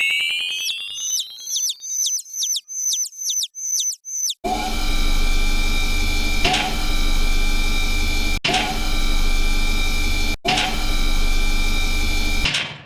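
Cartoon sound effect of a spinning roulette: rising electronic chirps over fast clicks that slow down and stop after about four seconds. Then a loud, steady mechanical whirring hum starts, swelling about every two seconds, and cuts off just before the end.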